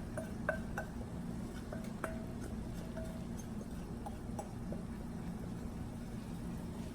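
A scattering of light clinks and taps from kitchenware, containers and utensils knocking against a pot and bowls, each with a short ring, over a steady low hum.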